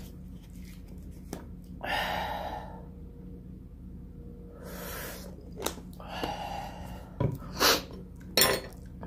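A man breathing out hard and sniffing in several short noisy gusts against the burn of extra-spicy noodles, with a few sharp mouth clicks in the last two seconds.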